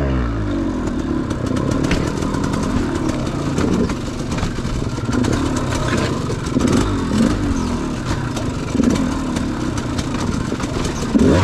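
Dirt bike engine revving in short repeated throttle bursts, each a quick rising rev, while the bike clatters and knocks over rocks.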